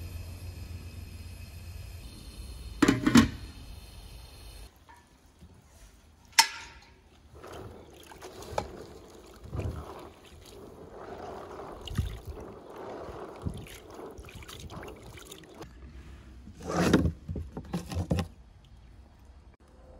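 Water sloshing and splashing as hands swish pomegranate seeds around in a plastic basin of water to rinse them, with the loudest splashes near the end. A steady hum fills the first few seconds and stops, and there is a knock and a sharp click in the first third.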